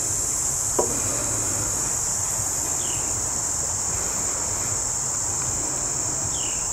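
Steady high-pitched drone of insects outdoors, with a low hum underneath and a single short click just under a second in.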